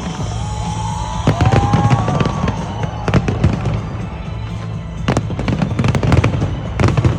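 Aerial fireworks going off over music: several whistling shells whose whistles rise and fall in pitch in the first few seconds, then a run of sharp bangs and crackles, loudest about five and seven seconds in.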